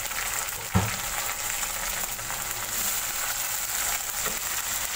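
Chopped tomatoes and browned onions sizzling in hot oil in a wok, stirred with a wooden spatula, as the tomatoes start to soften. There is a single sharp knock about a second in.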